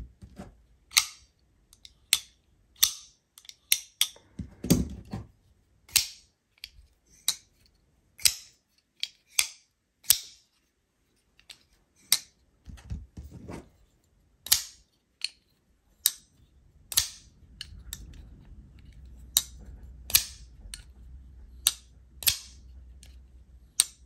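Titanium frame-lock flipper knives (Hinderer XM18, Koenig Arius, Grimsmo Norseman) being flipped open and shut over and over, each blade snapping into place with a sharp click, roughly one to two clicks a second with short pauses. The flips show how fast each blade fires out on deployment.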